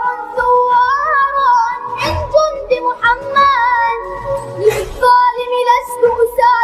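A song: a high voice sings a winding melody over a steady sustained drone. A heavy beat lands about every two and a half to three seconds.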